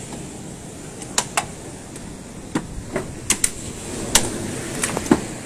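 Irregular sharp knocks and bangs of demolition work on a raised beach-restaurant deck, with workers hammering and prying at the structure: about nine strikes, a few tenths of a second to a second apart.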